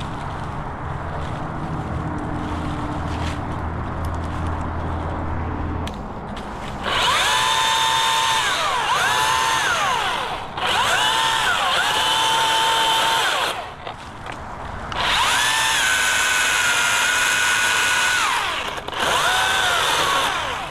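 Stihl electric chainsaw run in four bursts of a few seconds each: the motor whine climbs to full speed, holds, sags briefly in places, then winds down as the trigger is let go. A low steady hum fills the first six seconds.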